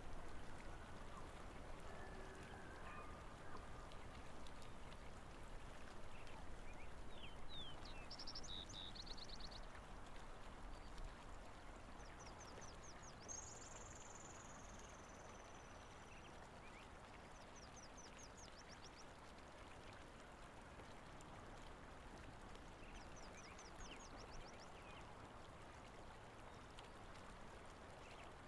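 Faint outdoor ambience: a steady low hiss, with a small songbird singing a short, high trilled phrase about every five seconds from about eight seconds in.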